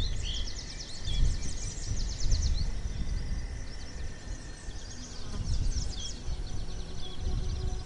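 Small birds chirping, with bursts of rapid high trills, over an uneven low rumble of outdoor ambience.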